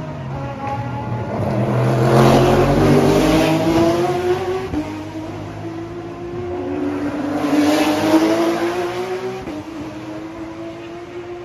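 Racing cars accelerating past, engine pitch climbing through gear changes. There are two loud passes, the first about two seconds in and the second about eight seconds in.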